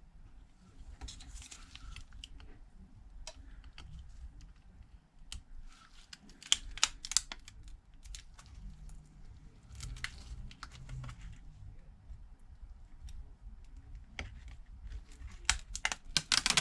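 Irregular small clicks and taps with short crinkling and peeling sounds of hands and tools handling a phone frame and plastic-backed adhesive tape pieces, with a dense run of clicks near the end.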